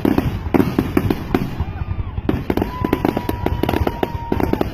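Fireworks going off close by in a dense, rapid string of cracks and bangs, with a steady high tone for about two seconds in the second half.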